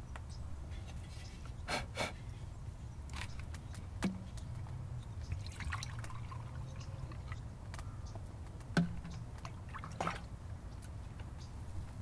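Water poured and dribbled from a bottle-gourd container into a small pot, with a few sharp hollow knocks as the gourds are handled and set down.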